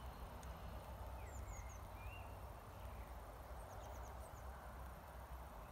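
Faint birds chirping: short gliding chirps, some in quick runs of three or four, over a steady background hiss and low rumble.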